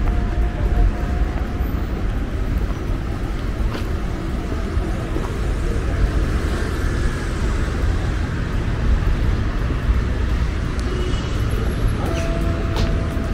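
City street ambience: steady traffic noise with a heavy low rumble and no break in it.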